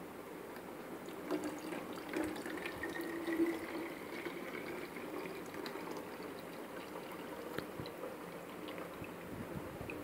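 Water being poured into a plastic bottle: a faint pouring trickle that starts about a second in, with a thin tone that rises slowly in pitch as the bottle fills.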